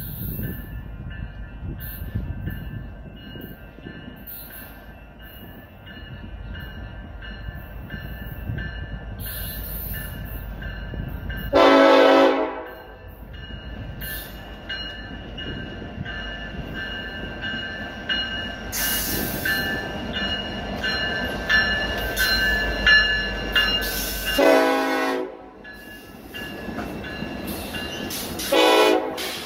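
Diesel freight locomotives approaching and passing with a steady low rumble, while the lead unit's five-chime K5LLA air horn sounds three blasts: a long, loud one about twelve seconds in, another about twelve seconds later, and a short one near the end.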